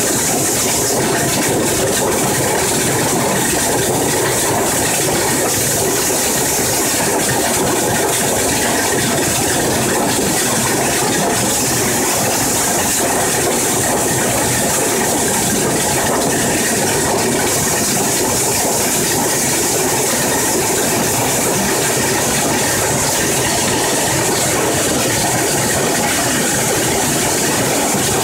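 Garlic color sorter machine running: a loud, steady, dense clatter of rapid clicks with a hiss over it.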